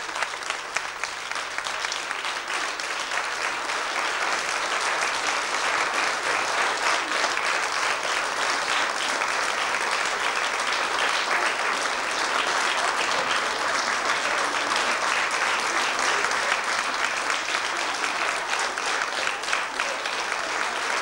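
Audience applauding in a hall: the clapping swells about three to four seconds in, then runs on steadily.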